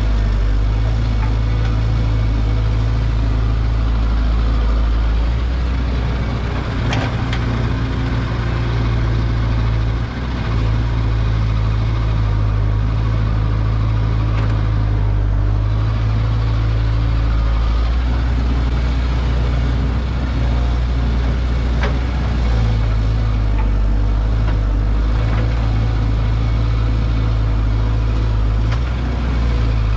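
Caterpillar excavator's diesel engine running steadily with a loud, even low drone, with a few sharp knocks spread through it.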